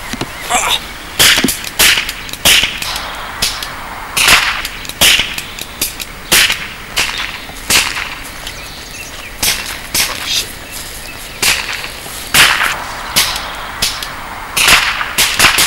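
A shootout: a long, irregular run of sharp gunshot cracks, sometimes several in quick succession, about two dozen in all.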